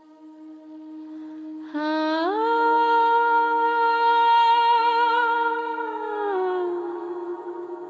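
Song intro: a soft sustained tone fades in, then a wordless hummed vocal enters about two seconds in, slides up to a long held note with slight vibrato, and glides back down near the end.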